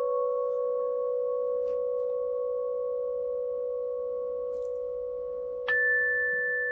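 Meditation music of long, ringing, bell-like tones that slowly waver as they sustain, with a new higher tone struck about five and a half seconds in.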